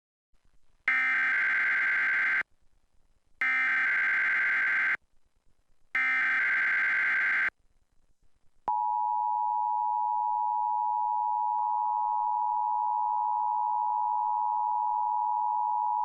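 Emergency Alert System broadcast signal: three identical bursts of SAME digital header data, each about a second and a half long with a one-second pause between, then the steady two-tone EAS attention signal (853 and 960 Hz), which begins about nine seconds in and is still sounding at the end.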